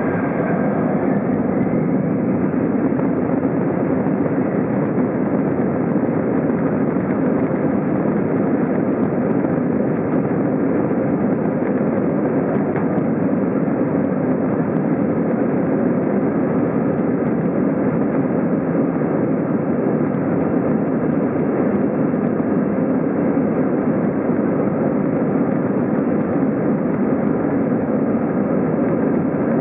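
Airbus A321 jet engines running, heard inside the cabin over the wing as a steady, even drone while the airliner moves on the ground before lift-off. A faint rising whine comes in near the start.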